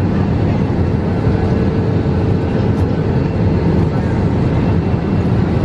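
Steady cabin noise inside a jet airliner: a low, even rumble of engines and air with a faint steady hum.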